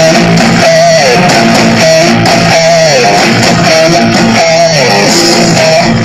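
Loud guitar music: a riff with falling slides over steady low notes, repeating about once a second.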